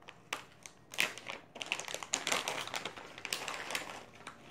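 A crinkly cat-treat packet being handled: a few sharp clicks, then a couple of seconds of dense rustling and crinkling.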